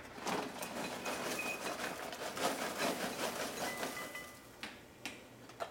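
A paper microwave-popcorn bag rustling as it is pulled open and tipped, then popped popcorn pouring out into a bowl with a dry, crackly rattle. A few sharp clicks near the end.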